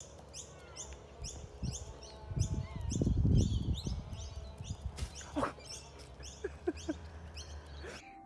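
Bird chirping over and over, a short high falling note about three times a second, with a few lower falling calls in the second half. A low rumble swells and fades about three seconds in.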